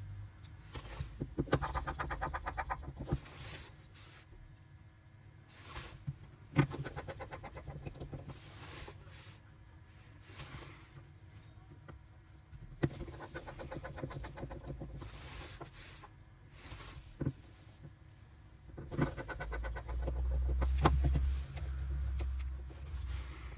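A small electric motor whirring in several short runs of a few seconds each, with sharp clicks and knocks in between.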